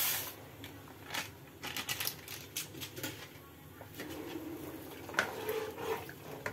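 A metal ladle stirring milk in a metal pot, with scattered clicks and knocks as it strikes and scrapes the pot's sides. It opens with a short burst as the falooda mix is poured into the milk.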